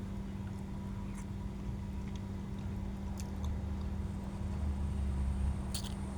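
Someone chewing a mouthful of fish curry close to the microphone, with a few faint clicks, over a steady low hum.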